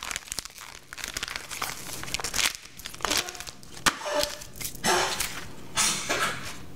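Plastic wrapping on a pack of smoked salmon crinkling and rustling as it is handled, in irregular crackly bursts, with a few light taps as bread slices are handled on a wooden cutting board.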